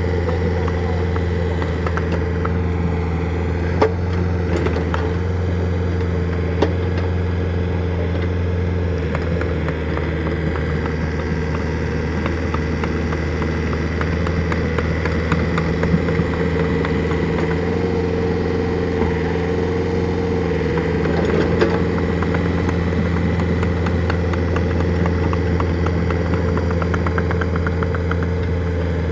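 Excavator engine running steadily under load, with a few sharp clanks and knocks from the machine working.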